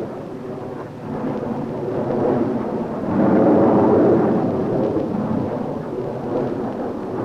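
Tupolev Tu-104 jet airliner flying past, its engines a continuous rumbling noise that swells about three seconds in and eases slightly toward the end.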